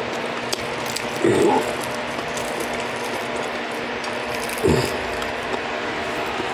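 Close-up chewing of crispy deep-fried trout: a steady run of small crunches and crackles. Two short low falling hums come about a second in and near five seconds.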